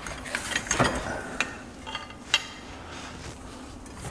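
Scattered small clicks and clinks of metal fittings and hand tools being handled, the sharpest about two and a half seconds in, over a faint rustling.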